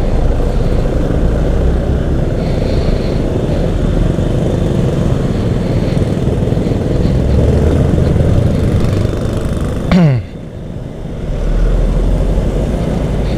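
Two-stroke Kawasaki Ninja 150 RR single-cylinder engine running steadily while being ridden. About ten seconds in the engine pitch drops sharply, as after a rev being let off. It goes quieter for a moment, then picks up again.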